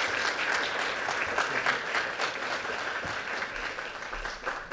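Audience applauding at the end of a talk: many hands clapping, fading out near the end.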